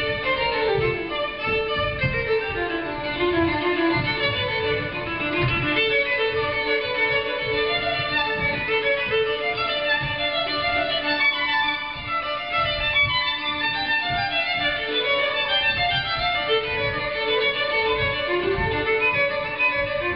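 Music led by a violin, playing quick runs of notes that climb and fall over a fuller accompaniment.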